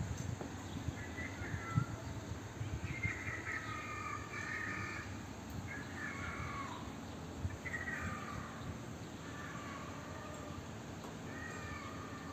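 A bird calling in several short runs of calls, spaced a second or two apart, over a low background rumble.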